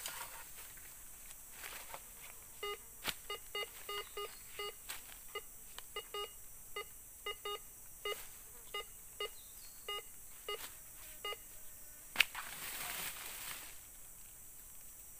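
TX-960 metal detector giving a string of short, same-pitched beeps, about two a second, as its coil is swept back and forth over the ground: the tone of a buried metal target under the coil. The beeps stop about three-quarters of the way in, followed by a single sharp click and a brief rustle.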